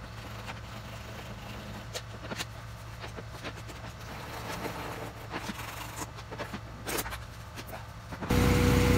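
Scattered light clicks, taps and knocks of hand tools as a mechanic works in a car's engine bay, over a low steady hum. Near the end the sound cuts abruptly to a much louder steady running sound with a single steady tone.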